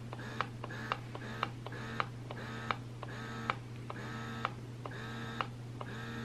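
Momcozy double electric breast pump running, its motor humming in short repeated suction cycles, each cycle marked by a sharp click. The cycles come about twice a second at first, then grow longer and slower, about once a second.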